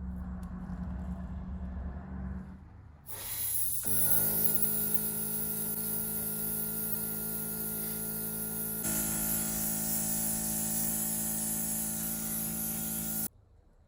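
Compressed air hissing hard from an air tool, with a steady mechanical hum under it. The hiss starts about three seconds in, runs evenly, and cuts off suddenly near the end. Before it there is a lower hum.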